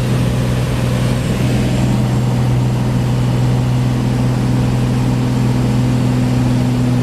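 Light bush plane's piston engine and propeller droning steadily at one constant low pitch.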